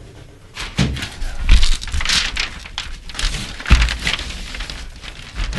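Wooden furring strips being handled and pressed against Tyvek house wrap: the wrap crinkles and rustles, with several knocks of wood on the wall, the heaviest a little under four seconds in.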